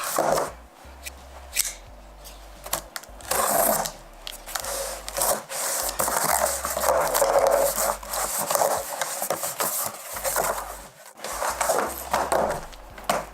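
Irregular scraping and rubbing sounds in bursts of a second or two, with a few sharp clicks, typical of a box and its packaging being handled.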